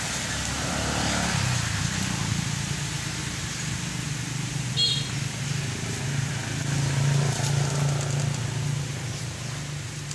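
A steady low motor hum, like a vehicle engine running some way off, that grows louder for a while in the second half. A single short high chirp comes about five seconds in.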